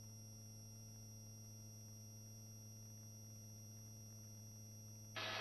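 Faint steady electrical hum from the helicopter's intercom audio feed, with a brief burst of noise near the end as a headset microphone opens.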